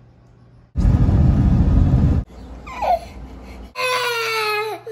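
Toddler crying: one long, loud wail near the end that holds its pitch and then drops. Before it, starting about a second in, there is a loud, deep noise lasting about a second and a half.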